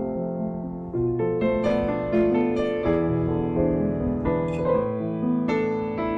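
Background piano music: a gentle melody of notes played one after another over held lower notes.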